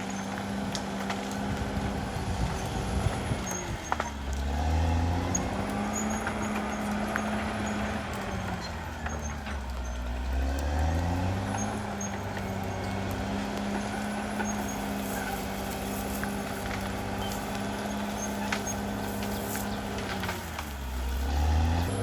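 Caterpillar D6R XL bulldozer's diesel engine running steadily, its note dropping and coming back up three times, with occasional sharp clanks.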